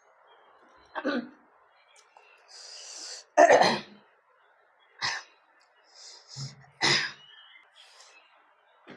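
A person coughing about four times, short breathy coughs a second or two apart, the second one the loudest and preceded by a sharp in-breath.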